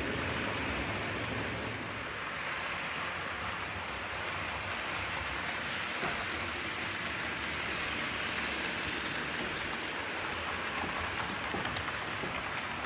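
OO gauge model trains running on the layout's track: a steady whirring hiss of motor and wheels on rail, with occasional faint clicks.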